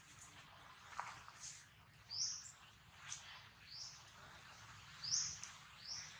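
A small bird chirping repeatedly: short, high, sweeping notes, mostly in pairs about a second and a half apart. A single sharp click sounds about a second in.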